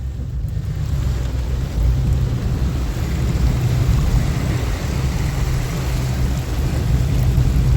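A vehicle engine running with a steady low rumble, under a constant wash of water noise as the vehicle pushes through deep floodwater.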